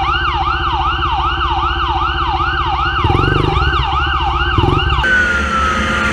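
Police siren on a fast yelp, rising and falling about two and a half times a second, over a motorcycle engine that revs up briefly about three seconds in. The siren cuts off about five seconds in.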